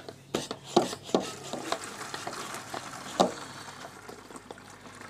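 A scatter of clicks and knocks from objects being handled, with a light rustling hiss, the sharpest knocks about a second in and at about three seconds, then dying away.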